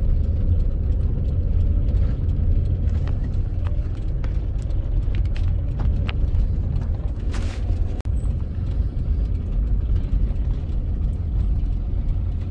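Camper van driving: steady low engine and road rumble heard from inside the cab, with small rattles and a brief hiss about seven seconds in.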